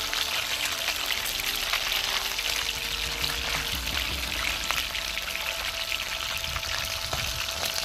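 Tilapia and ripe plantain slices frying in hot oil in an open pot: a steady sizzle full of small crackles and pops.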